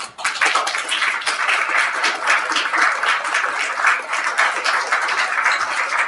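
Audience applauding, many hands clapping, breaking out all at once.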